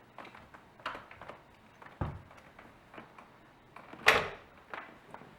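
Apollo City electric scooter being unfolded: a few light knocks and a dull thud, then one loud, sharp clack about four seconds in from the folding mechanism.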